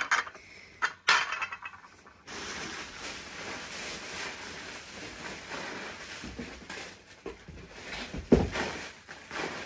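Ceramic cups and saucers clinking a few times as they are set into one another, then a long stretch of packing wrap rustling as more crockery is unwrapped, with one dull thump near the end.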